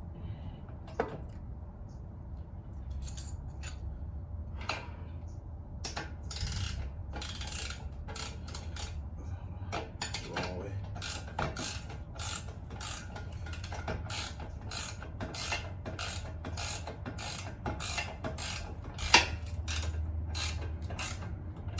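Ratchet wrench clicking through repeated short strokes, about two a second, as bolts on a minibike's axle and chain-tensioner hardware are worked on. There is a single sharp knock near the end.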